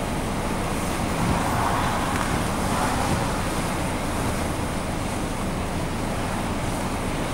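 Gale-force wind buffeting the microphone over heavy surf breaking on a rocky shore, a steady rumble with the wash of a breaking wave swelling up between about one and three seconds in.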